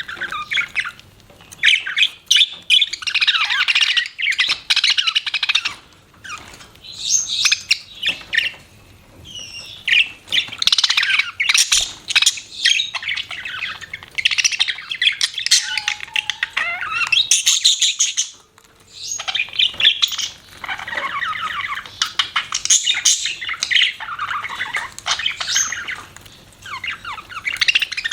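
Budgerigars chattering and warbling in bouts of a few seconds, with short pauses between.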